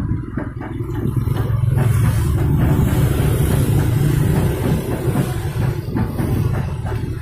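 Motorcycle engine running steadily as it carries a street-food cart along a road, getting a little louder about two seconds in, with the rumble of passing motorbikes.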